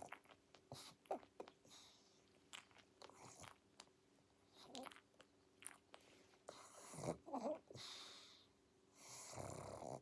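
Sleeping pug snoring and snorting softly through its short muzzle, irregular breaths with louder snorts about seven seconds in and again near the end, with small mouth clicks and smacks between them.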